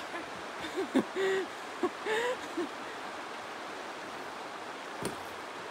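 Steady rush of flowing water, with a few short vocal sounds from a person in the first three seconds and two faint clicks, one about a second in and one near the end.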